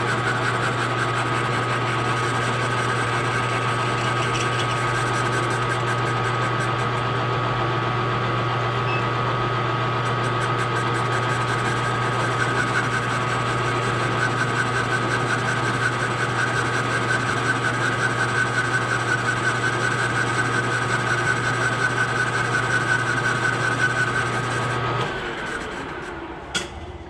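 Grizzly G0776 gunsmithing lathe running steadily while a boring bar, fed by hand, cuts and trues the worn bore of a cast iron pulley: a constant motor hum with the rasping of the cut. The lathe shuts off and runs down about 25 seconds in.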